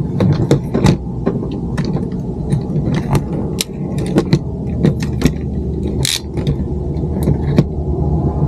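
Sharp plastic clicks and knocks of a phone being fitted into a phone holder on a gooseneck dashboard mount, over a steady low rumble, with a short hiss about six seconds in.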